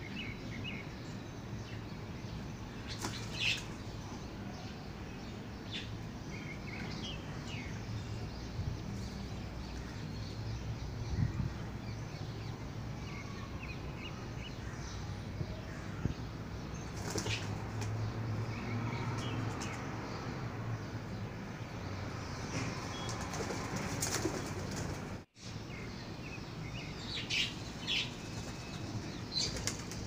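Garden birds heard live: a few short chirps and bursts of wing flapping at scattered moments over a steady low background hum. The sound drops out completely for an instant about 25 seconds in.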